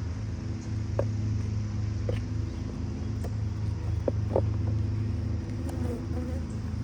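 Honeybee colony humming steadily from an open hive, with a few single bees buzzing briefly past.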